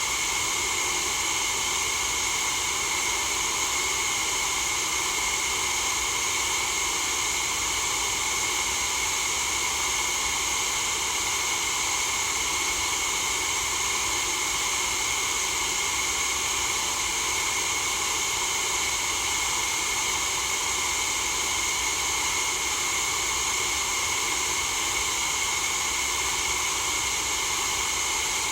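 Steady white noise for sleep: an even, unchanging hiss that is brightest in the high range.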